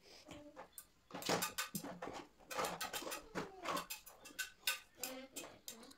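Light clicks and rustling of small metal paper fasteners and card pieces being handled, with a dog whimpering now and then in the background.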